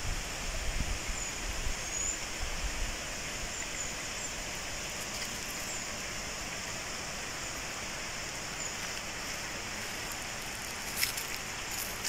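Steady outdoor forest ambience: an even hiss with a few faint, short, high chirps. A low rumble comes in over the first few seconds, and a few light crackles come near the end.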